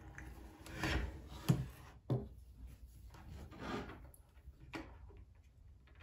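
Handling noise as a USB-C hub and its cables are moved and plugged in on a wooden desktop: rubbing and scraping, with a few short sharp clicks.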